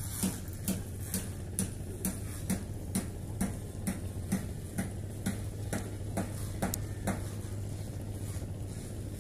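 Sharp mechanical clicks at a steady rate of about two a second, stopping about seven seconds in, over a steady low hum.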